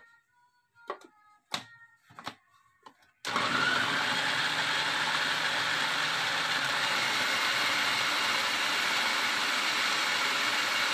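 A few short plastic clicks, then about three seconds in an electric food processor starts and runs steadily, its blade chopping raw turnip chunks.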